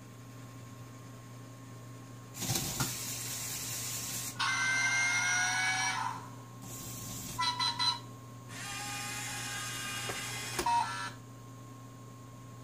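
LEGO Mindstorms EV3 motors whirring through plastic gears and a rack as they drive the giraffe model's neck and legs, in a few runs of a couple of seconds each, the whine shifting in pitch. Short electronic beeps come in around eight seconds in and again just before the motors stop.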